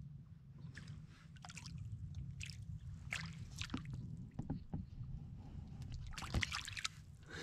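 Light splashes and knocks on the water around a canoe, then near the end a small northern pike thrashing and splashing at the surface as it is reeled up out of the water on a lure.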